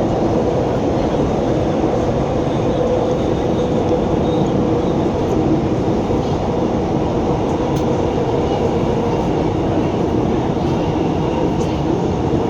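Alstom Movia R151 metro train running at speed between stations, heard from inside the carriage: a steady rumble of wheels on rail with a faint steady hum.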